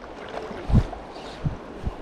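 Steady wash of river water with three short, low thumps on the microphone, the loudest less than a second in.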